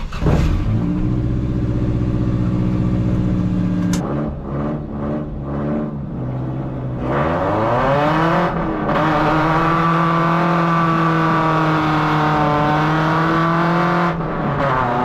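Engine-swapped 1979 Toyota Corolla pulling away and accelerating. The engine's pitch climbs and holds, falls at a gear change about four seconds in, climbs again and holds steady, then drops near the end.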